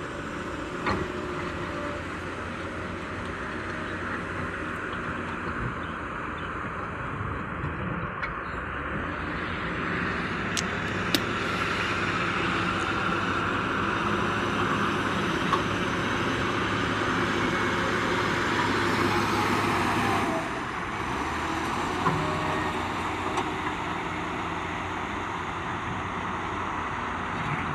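A heavy machine's engine running steadily, its level slowly building and then dropping off suddenly about twenty seconds in, with a few brief sharp clicks.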